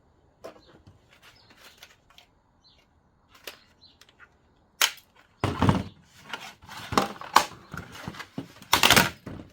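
Parts of a Dell Wyse unit being handled during disassembly: scattered light clicks and knocks, with louder clattering knocks about halfway through and again near the end.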